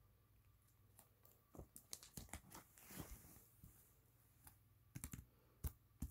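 Faint handling noises of portfolio pages: scattered soft clicks and taps, with a brief papery swish of a page being turned about three seconds in.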